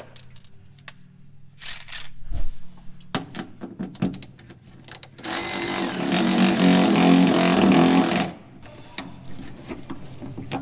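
Scattered clicks and clinks of tools on metal, then a power tool runs for about three seconds, loosening a fastener to take a part off the fuel tank.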